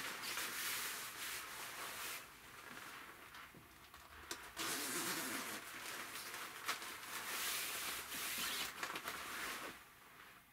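Shiny Tommy Hilfiger puffer jacket rustling and swishing as the wearer moves his arms and handles the fabric, a hissing rustle that comes in waves, strongest in the second half, and stops near the end.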